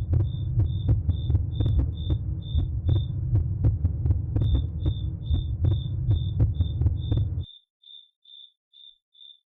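Suspense sound-effect intro: a deep, throbbing, heartbeat-like drone with sharp clicks under a short high electronic beep repeating about two and a half times a second. The drone cuts off suddenly about seven and a half seconds in, leaving only the beeps.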